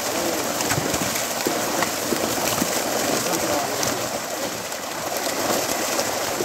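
Many fish thrashing at the surface inside a net drawn up in shallow pond water, a steady dense splashing.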